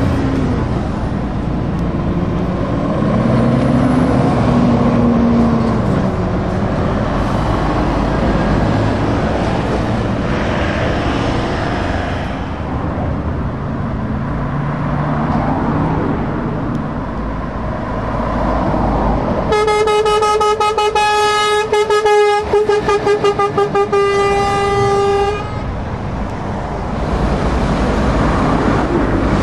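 Heavy trucks and cars passing on a road, with engine and tyre noise. About two-thirds of the way in, a truck's air horn sounds for about six seconds: a long blast broken in the middle by a quick run of short toots.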